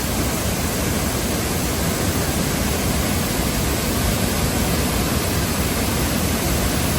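Waterfall in heavy flow: water pouring and splashing down in a steady, unbroken rushing noise.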